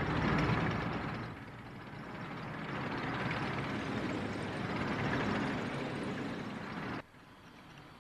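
Cartoon sound effect of a tank's engine and tracks running, swelling and easing. It cuts off abruptly about a second before the end, leaving only a faint hum.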